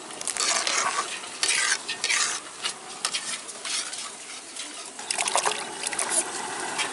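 A metal slotted ladle stirring and scraping in a metal pot of simmering curry, in repeated strokes. Near the end come hands sloshing in a bowl of water.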